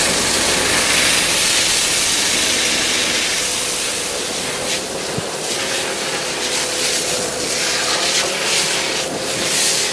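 High-pressure water jet of a hydro excavation head blasting into soil, a loud steady hiss and spray with a steady hum underneath.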